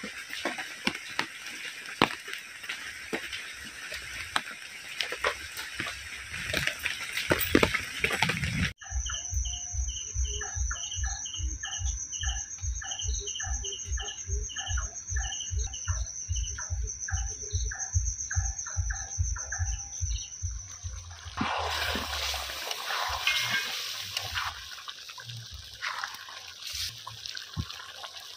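Heavy rain falling, a steady hiss full of small patters and drips. About nine seconds in it cuts off abruptly to a rhythmic pulsing sound of about two and a half beats a second with a steady high whine, which lasts about twelve seconds before the rain comes back.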